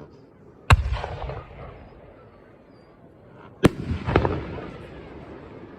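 Aerial firework shells bursting: two sharp booms about three seconds apart, each trailing off in a fading rumble, with a further bang half a second after the second boom.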